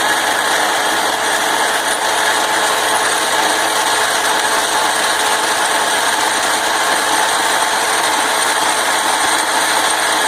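Vintage Atlas metal lathe, driven by its single-phase 110-volt motor, running at steady speed while taking a light turning pass on a drill bit's hardened shank.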